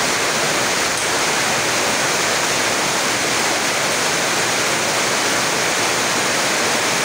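Heavy rain falling steadily, a loud even hiss that drowns out the play.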